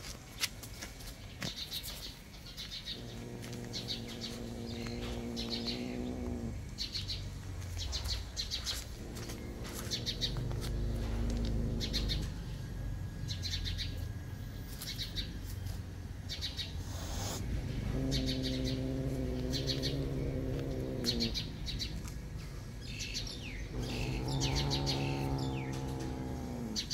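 A small bird chirping repeatedly, short high chirps about once a second, while four times a long, low, steady tone of about three seconds swells up and dips in pitch at its end.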